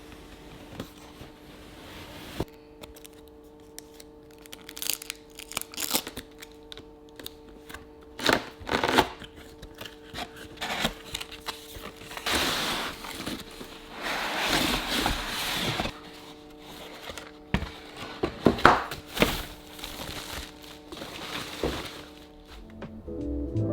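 Packaging being handled and unwrapped: plastic and paper crinkling and tearing in irregular bursts, with scattered small knocks. The rustling is thickest in the middle stretch.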